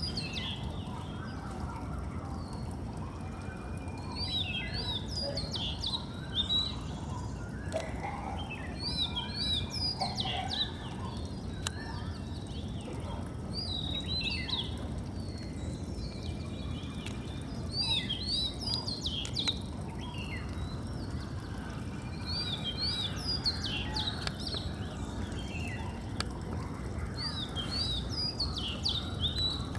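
Oriental magpie-robin singing: a whistled phrase of quick up-and-down notes about every four to five seconds, with thin held whistles between phrases, over a steady low background rumble.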